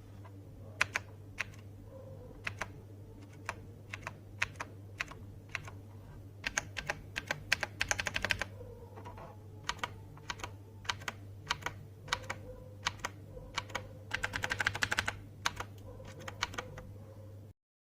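Typing on a TVS Gold mechanical keyboard with clicky Cherry MX Blue switches. Separate keystrokes come first, then two quick flurries of fast typing, about halfway through and near the end, over a steady low hum.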